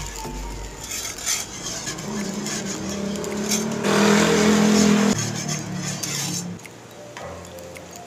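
Wire whisk stirring thin gravy in a metal pan, clicking and scraping against the pan. A louder steady hum swells about four seconds in and stops a second later.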